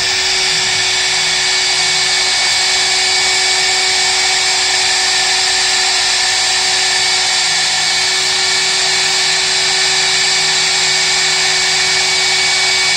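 CNC mill spindle running with a tiny 2 mm single-flute endmill cutting the stock: a steady high whine over a hissing cutting noise, even and unchanging.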